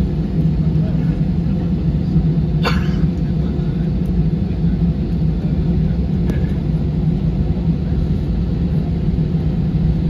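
Cabin noise of an Airbus A320-216 taxiing, heard inside the cabin: the steady low rumble of its CFM56 engines at taxi power. A short sharp sound cuts through about two and a half seconds in, and a fainter one about six seconds in.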